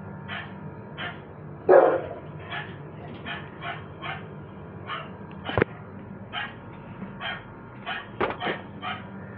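Dog barking: a steady run of short barks, two to three a second, with louder barks about two seconds in and near the end. A single sharp knock comes about halfway through.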